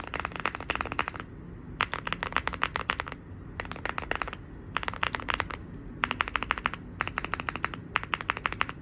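Fast typing on a mechanical keyboard fitted with Dareu ceramic keycaps: quick runs of key clacks about a second long, seven or so, with brief pauses between. The sound is close to polycarbonate keycaps rather than a ceramic one.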